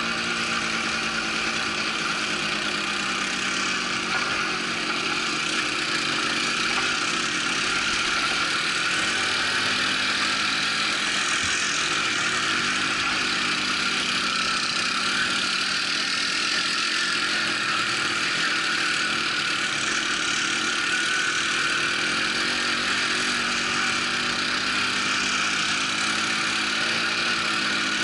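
Quad bike engine running steadily as the bike is ridden along a dirt track, at an even speed with no change in pitch.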